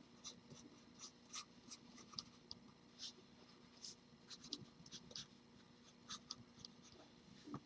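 Pencil scratching on drawing paper in many short, quick sketching strokes, faint.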